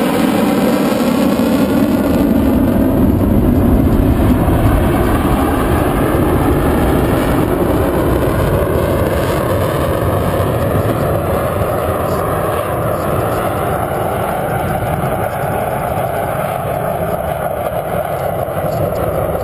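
Belgian F-16's Pratt & Whitney F100 turbofan roaring on a low display pass, swelling to its loudest about three to four seconds in, then slowly fading as the jet moves off, with a slowly drifting, rippling tone.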